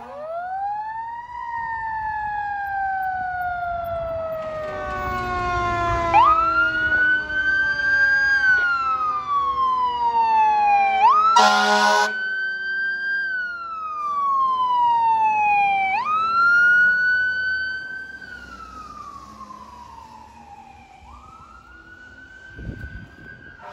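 Fire truck mechanical siren wailing: it winds up quickly and coasts slowly down in pitch, wound up again about every five seconds. An air horn blast comes about halfway through, and the siren fades after about 18 seconds.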